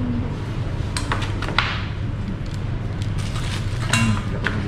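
Light clinks and clatter of stainless steel serving pans and plates being handled on a table, several separate knocks scattered through, over a steady low hum.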